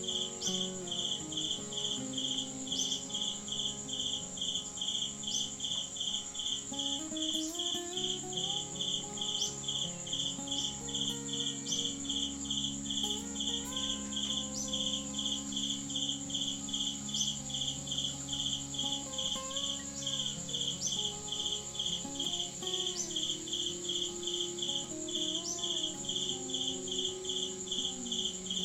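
Insects chirping in an even, steady pulse throughout, with a bed of low, shifting tones underneath.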